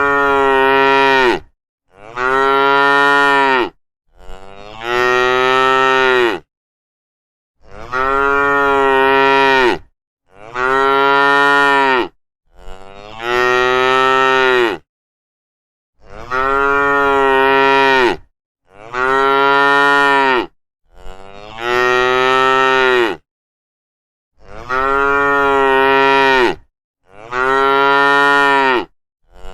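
Cow mooing over and over: about a dozen long, level moos of about two seconds each, with short gaps of complete silence between them.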